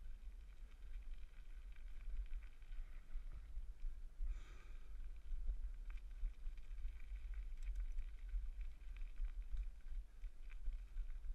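Bicycle riding over a bumpy dirt track, with a steady low rumble of wind buffeting the microphone and light clicks and rattles from the bumps. A brief louder hiss comes about four seconds in.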